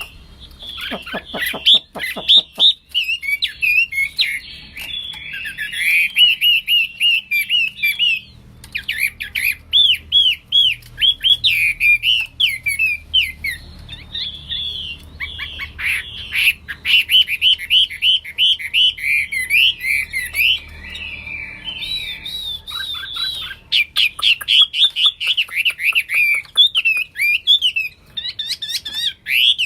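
Chinese hwamei singing a long, loud, varied song in full voice: fast runs of repeated whistled notes sweeping up and down, phrase after phrase, with only brief pauses.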